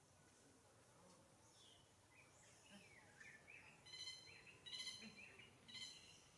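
Faint bird calls over quiet outdoor background: a quick run of small chirps about two seconds in, then three short, sharper calls about a second apart.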